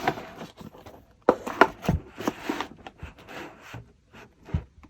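Packaging being handled: soft rustling with several sharp taps and knocks, as from cardboard puzzle boxes being moved and set down.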